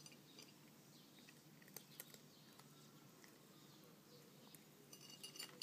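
Very quiet: a cat eating soft dried sardines and dry kibble off a plate, with a few faint chewing clicks, and a quick run of high squeaky chirps near the end.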